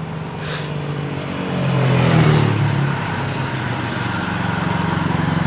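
Motorcycle engine running, getting louder about two seconds in as its pitch shifts.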